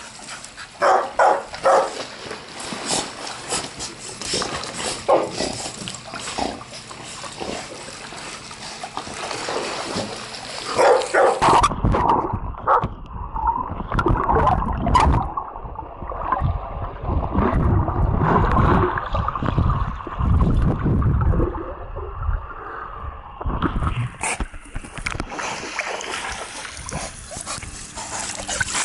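Dogs barking and splashing in a swimming pool. From about twelve seconds in, the microphone goes underwater: the sound turns muffled and low, with the thrashing of dogs paddling, until it surfaces again a few seconds before the end and the splashing is clear again.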